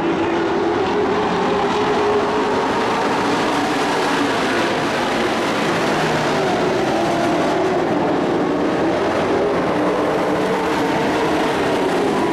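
Dirt-track race truck engines running at speed around the oval, a loud steady drone whose pitch rises and falls slightly as the trucks circle.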